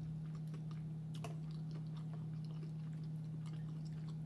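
Close-miked chewing of a seafood egg roll, a scatter of soft wet clicks and small crunches, over a steady low hum.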